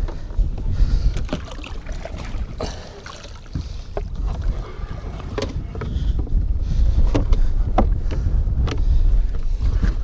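Low rumble of wind buffeting the microphone, with scattered sharp knocks and clatters as a hinged wooden fish-measuring bump board is unfolded and handled on the boat deck.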